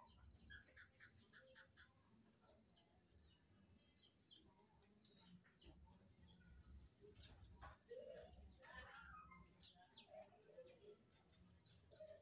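Faint, steady, high-pitched insect drone, with a few faint bird chirps and small handling clicks.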